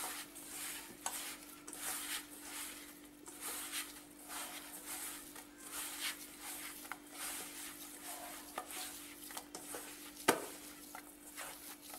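Hand kneading semolina and flour dough in a stainless steel bowl: repeated soft rubbing and scraping of fingers and dough against the metal, with one sharp knock about ten seconds in.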